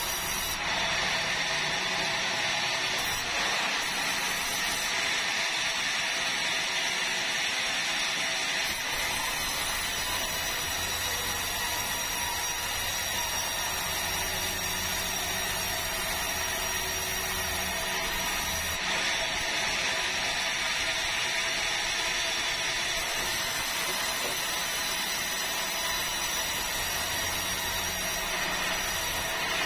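Large sawmill band saw cutting lengthwise through a big red meranti log, its blade and motor running steadily with a continuous sawing sound and steady high tones.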